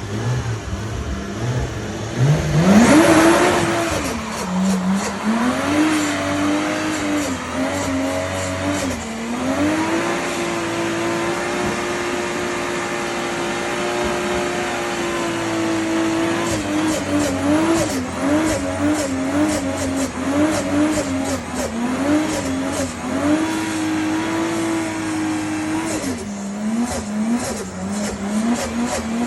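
A drift car's engine revving up sharply about two to three seconds in, then held at steady high revs for several seconds before rising and dipping repeatedly with the throttle, with tires squealing as the car slides.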